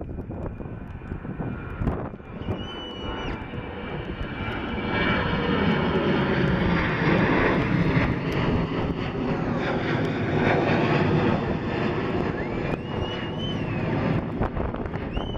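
Boeing 737-800's twin CFM56-7B turbofan engines at climb-out thrust as the jet passes overhead after takeoff. A steady rushing jet noise builds to its loudest about five to eleven seconds in, then slowly fades as the aircraft climbs away.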